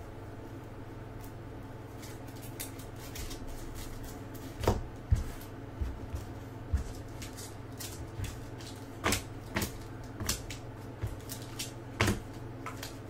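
Baseball cards in clear plastic holders being handled and set down on a table: a string of sharp clicks and taps over a steady low hum.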